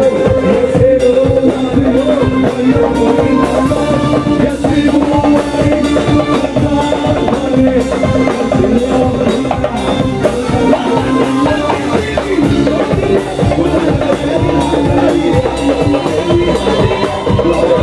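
Live band music driven by hand-played darbuka (goblet drum) and a drum kit, with electric guitar and bass guitar, keeping a steady, busy beat.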